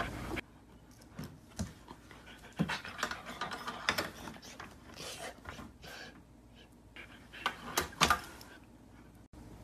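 A dog panting in short, irregular breaths, with a few sharp clicks a little before the end.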